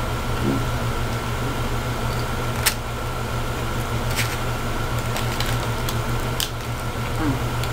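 A plastic fork scraping and tapping in a styrofoam takeout container, a few sharp clicks over a steady low hum from the room.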